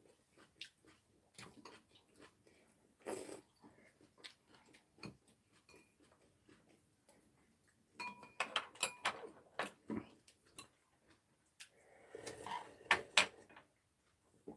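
Quiet eating sounds: chewing and mouth sounds with chopsticks clicking against ceramic bowls, a cluster of sharp clinks with a brief ring about eight seconds in, and a louder slurp from a bowl of stew near the end.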